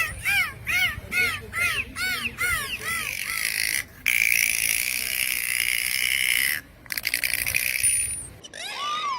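Dolphin vocalising: a run of short rising-and-falling chirps, about two and a half a second, then a long buzzing squawk lasting a couple of seconds, then a rapid train of clicks, and a gliding whistle near the end.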